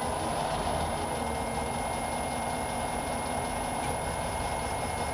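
Myford ML7 lathe running at a steady speed, its motor and belt drive turning the spindle with an even, unchanging drone and a faint high whine, just before a parting cut.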